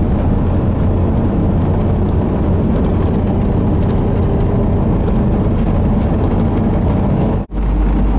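Motor engine running steadily at a constant speed, a loud low hum with a brief break near the end.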